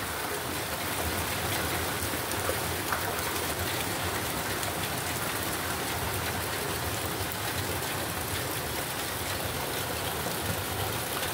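Sudden heavy downpour, a cloudburst: a steady hiss of rain.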